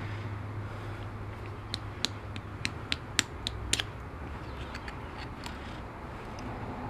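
Hands working small parts: a run of about a dozen light, sharp clicks and creaks over a few seconds, over a low steady hum.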